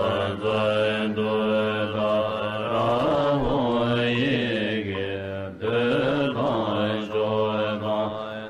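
Buddhist mantra chanting: a voice intoning repeated phrases over a steady low drone, with a brief break about five and a half seconds in before the phrase starts again.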